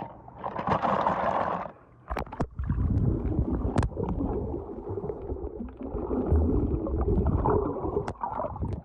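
Lake water splashing and sloshing at the surface, then muffled underwater gurgling and rumbling with scattered knocks as the camera goes under the water.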